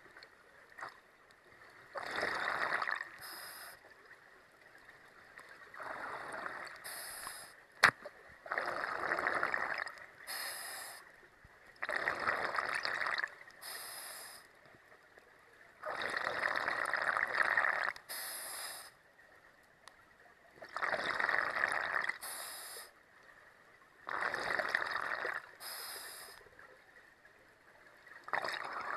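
Scuba diver breathing through a regulator underwater: about six breaths, one every four to five seconds, each a longer rush of bubbling air followed by a short higher hiss. A single sharp click about eight seconds in.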